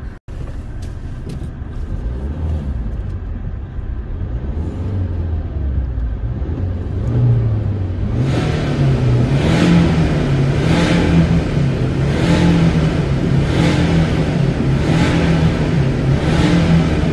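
BMW 320d's two-litre four-cylinder turbodiesel, fitted with an aftermarket Supersport diesel sport exhaust, pulling steadily while driving, heard from inside the car. About halfway through, the car enters a concrete underpass and the engine and exhaust sound grows louder and brighter.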